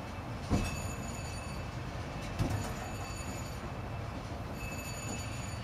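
Railroad turntable bridge turning with a car aboard: a steady mechanical rumble with a thin, steady high whine over it, and two short clunks, about half a second and two and a half seconds in.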